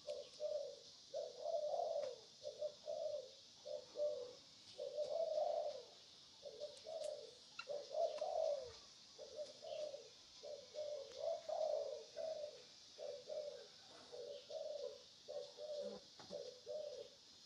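Pigeons cooing in a continuous, overlapping series of short low calls, over a steady high hiss.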